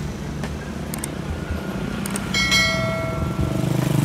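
Steady hum of street traffic with motorcycle engines. About two seconds in comes a single bright, bell-like ring that fades over about a second.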